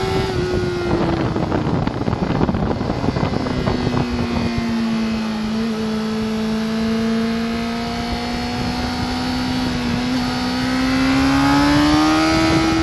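Sport motorcycle engine heard from on board, with rushing wind noise. The engine note falls as the bike brakes hard into a corner, holds a steady low note through the turn, then rises again as the throttle opens near the end.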